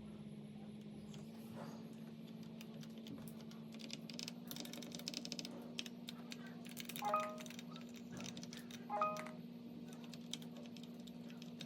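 Faint clicks of mechanical keyboard keys, in a quick cluster just before the middle, over a steady low electrical hum. Two short electronic beeps, about two seconds apart, are the loudest sounds.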